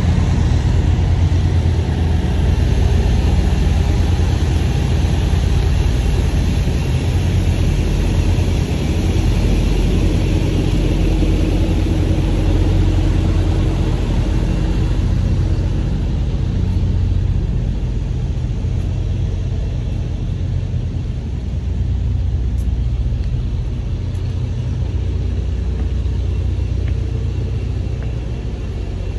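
Semi-truck diesel engine running with a steady low rumble; a hiss above it thins out about halfway through.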